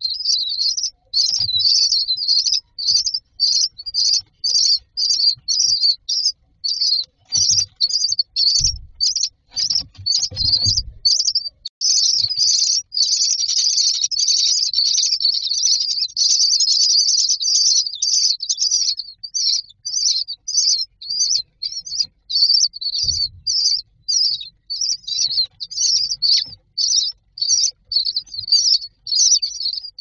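Common myna nestlings begging for food: a rapid run of high-pitched cheeps at about two a second, swelling into a continuous chorus for several seconds midway as the parent feeds them. A few soft low bumps sound underneath.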